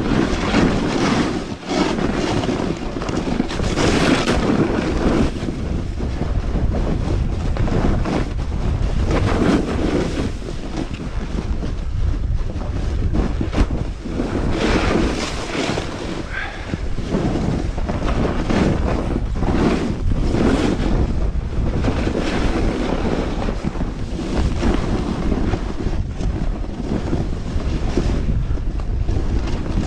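Wind rushing over a GoPro's microphone while a snowboard carves and scrapes over snow, the hiss of the edges surging with each turn.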